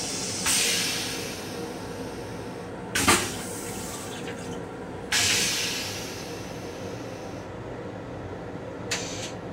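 Railcar toilet with a stainless-steel bowl flushing: rinse water hisses into the bowl twice, each time starting suddenly and fading over a second or two. A short loud burst about three seconds in is the loudest sound, and a brief one comes near the end, over the steady rumble of the moving train.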